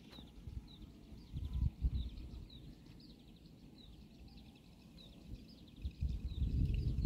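A bird calling over and over in short, high chirps about every half second. Low rumbling bumps on the microphone come around two seconds in and again near the end.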